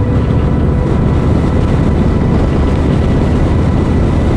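Harley-Davidson V-twin motorcycle engine running steadily while riding at cruising speed, a dense low rumble.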